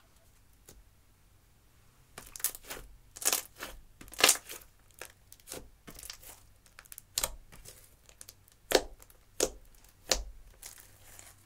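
Hands squeezing and pressing thick slime mixed with crushed eyeshadow, giving irregular sticky clicks, pops and squelches that start about two seconds in.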